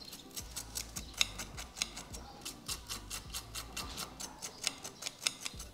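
Table knife scraping the charred skin off smoked fish on a plate: a rapid, irregular run of light clicks and scrapes as the blade catches on the plate, about five or six a second.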